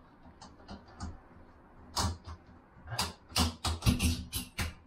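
Hard metal and plastic plumbing hardware being handled: a series of sharp clicks and knocks, sparse at first, then coming quickly from about three seconds in.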